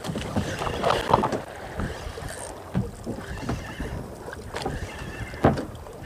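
Wind buffeting the microphone and water moving against the hull of a small outrigger fishing boat at sea, with a few scattered knocks.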